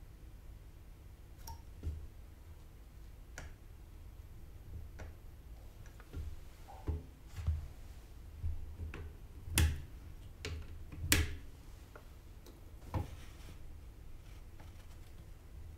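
Irregular small clicks and taps of hand tools and a soldering iron handled against a circuit board during soldering work. The two sharpest, loudest clicks come about two-thirds of the way through.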